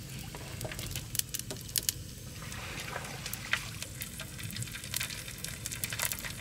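Oil sizzling in a small wok as pieces of dried fish fry, with many scattered sharp crackles of spitting oil.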